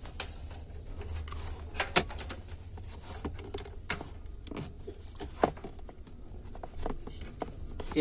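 Scattered sharp clicks and light knocks of plastic SATA cable plugs and the metal drive being handled while the connectors are pushed onto a 3.5-inch hard drive's ports. A low steady hum runs underneath.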